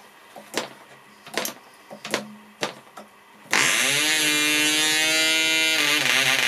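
PAW .55 model diesel engine being flicked over by hand, with four sharp clicks of the propeller strokes, then firing about three and a half seconds in and running steadily, its revs climbing briefly as it catches. It is a cold start, with the compression screw turned up until the engine fires.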